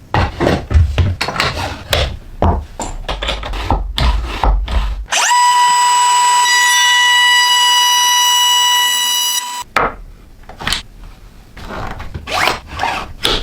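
Tools knocking and clicking, then a small high-speed power tool spins up and runs with a steady high whine for about four seconds before stopping abruptly, followed by more knocks and clicks.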